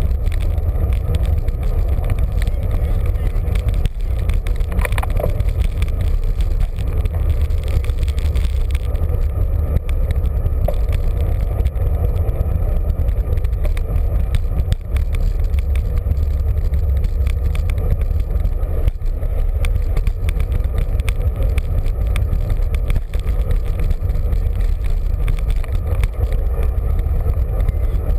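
Wind buffeting the microphone of a camera mounted on a moving road bicycle: a steady low rumble with little else above it.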